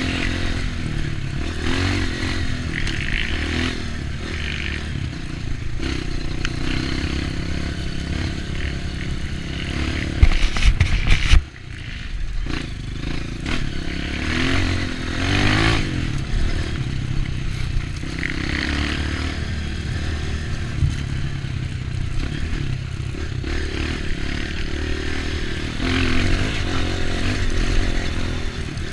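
Off-road dirt bike engine running on a trail, its revs rising and falling, with rattling and scraping over rough ground. About ten seconds in there is a short, loud blast of noise that cuts off suddenly.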